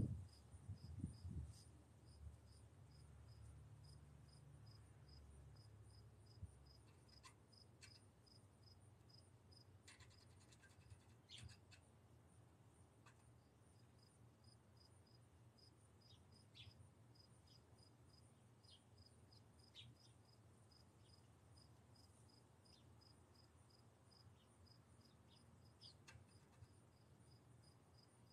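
Faint chirping of a cricket, evenly spaced at about three chirps a second, with a few soft clicks and scratches scattered through.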